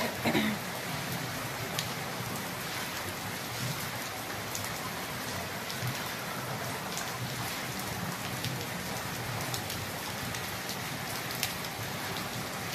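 Heavy rain falling steadily on paving and foliage, an even hiss with scattered sharp drops striking close by.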